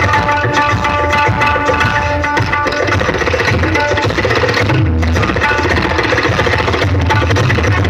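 Loud music with heavy bass and fast drumming, played through a DJ sound system during a sound check.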